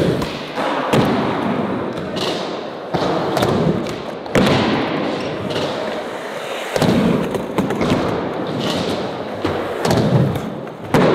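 A series of skateboard ollies over a bar, one skater after another: tails popping and boards landing with thuds, a dozen or so impacts at uneven intervals.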